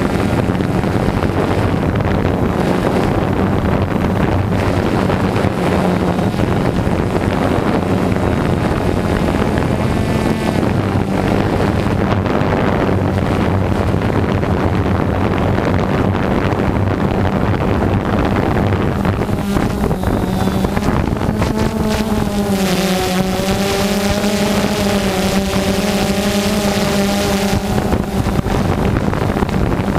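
Multirotor drone's electric motors and propellers running with a steady, loud whine, picked up by the drone's own camera microphone. Near the end the pitch shifts and a higher hiss joins for several seconds.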